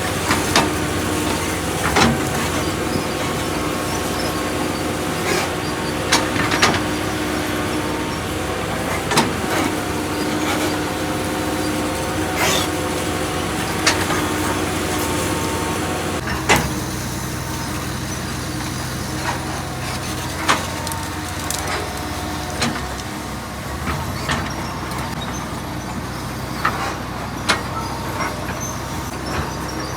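Hydraulic excavator's diesel engine running steadily under work, with scattered sharp knocks and clanks. The engine note shifts about halfway through.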